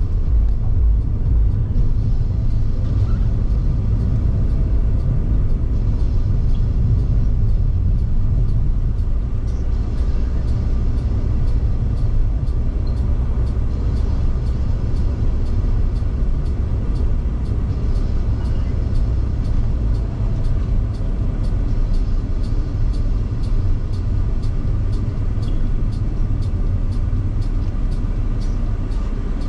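Car driving steadily: a constant low rumble of engine and road noise.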